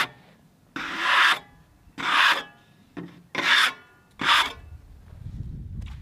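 A brush sweeping sawdust off the face of a freshly sawn black walnut slab: about five short, scratchy strokes, roughly one a second.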